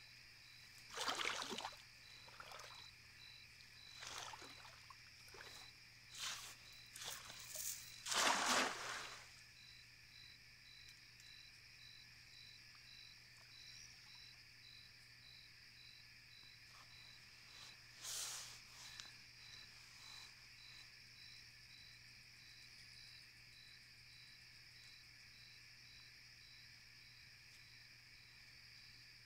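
Steady nighttime chorus of calling insects, one of them pulsing about twice a second. Over it come several splashing, sloshing water sounds from a cast net being thrown and worked in the water, bunched in the first nine seconds with the loudest about eight seconds in, and one more about eighteen seconds in.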